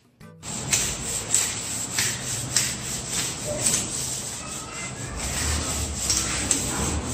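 Back-and-forth rubbing on a ceramic tile countertop, starting suddenly about half a second in and going on in regular strokes just under two a second.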